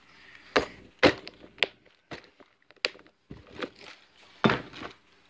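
Irregular knocks and clicks from a plastic tackle box of fishing hooks being handled, about half a dozen sharp taps with quiet between them.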